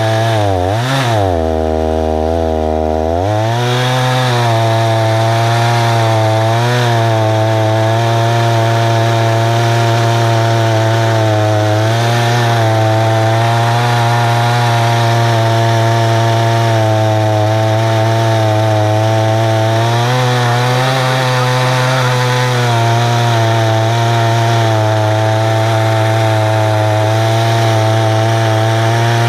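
Husqvarna 288 two-stroke chainsaw running hard in an Alaskan chainsaw mill, ripping lengthwise through a tulip poplar log. Its engine speed wavers and dips over the first few seconds, then holds steady under load for the rest of the cut with a couple of small sags.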